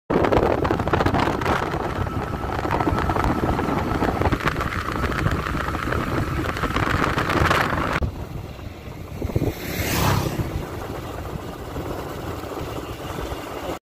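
Wind rushing over the microphone, with road and engine noise from a motorcycle in motion. The noise drops about eight seconds in, swells briefly around ten seconds, and cuts off abruptly near the end.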